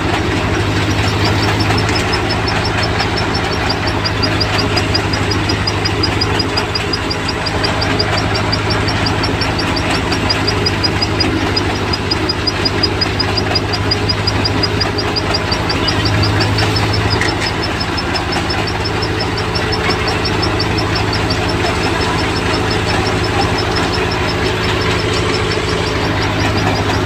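Engine of a soybean harvesting machine running steadily with a deep, even drone. A fast, even high-pitched ticking runs above it.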